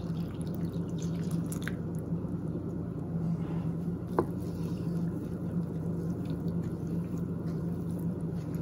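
Water poured into a bowl of dry falafel mix at the start, then stirred in with a wooden spoon: soft wet squelching and sloshing, with a small click about four seconds in, over a steady low hum.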